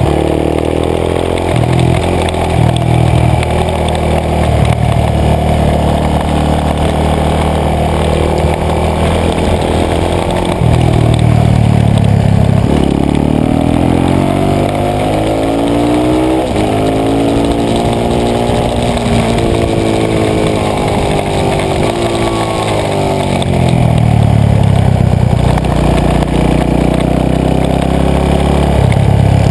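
Supermoto dirt-bike engine, heard close up from a handlebar-mounted camera while riding laps. Its pitch rises and falls again and again as the rider accelerates out of turns and backs off for the next, over a steady rush of wind.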